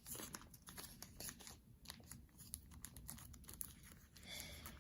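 Faint crinkling and rustling of a plastic wrapper and paper sticker sheets being handled, with scattered light clicks.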